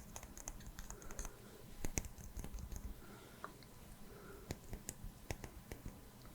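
Close-miked ASMR trigger sounds: sparse, soft clicks and faint rustles right at the microphone.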